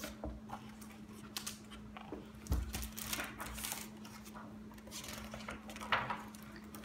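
Paper picture-book pages rustling as the book is handled and a page is turned, with light taps and a soft thump as the book meets the table, over a faint steady hum.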